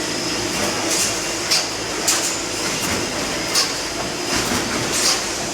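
Wire mesh fence panel welding machine running: a steady mechanical hum with five sharp, hissy clacks at uneven intervals of about half a second to a second and a half.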